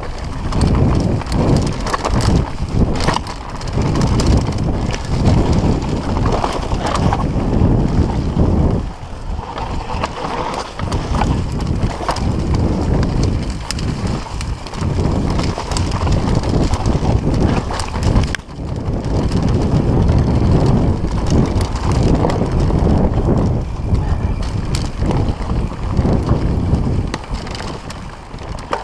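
Mountain bike riding fast down a rough dirt trail: tyres rumbling over the ground and the bike rattling and knocking over bumps, with wind buffeting the microphone.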